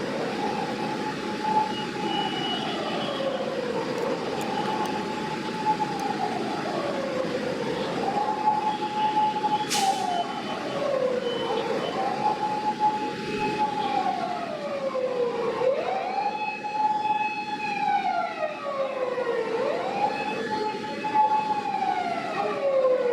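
Emergency vehicle siren wailing in slow cycles of about four seconds: a held high tone slides down and snaps quickly back up. The siren grows stronger and fuller in the second half, over a steady background of traffic noise.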